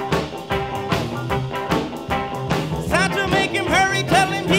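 Upbeat swing-style background music with a steady beat.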